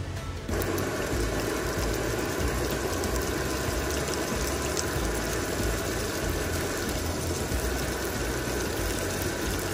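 Onion rings and thyme sizzling in hot vegetable oil in a steel frying pan: a steady hiss full of fine crackles that comes in abruptly about half a second in.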